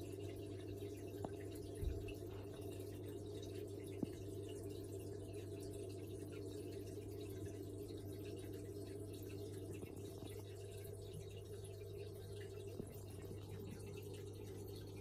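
Aquarium filtration running: a steady hum from the air pump with water bubbling from the sponge filters, and a couple of faint knocks.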